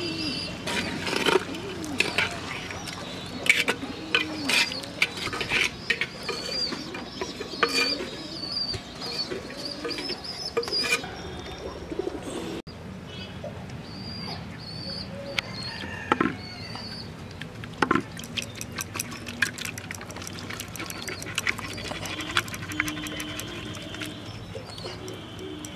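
Metal spatula clinking and scraping against a clay handi as mutton curry is stirred, then, about halfway through, the thick curry poured from the clay pot onto a clay plate. Birds chirp throughout.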